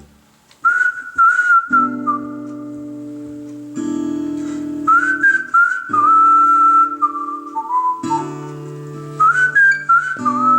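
Recorded music played back through vintage JBL C38 loudspeakers (D130 woofers, 075 ring-radiator tweeters). After a brief gap between tracks, a whistled melody comes in over acoustic guitar and bass chords.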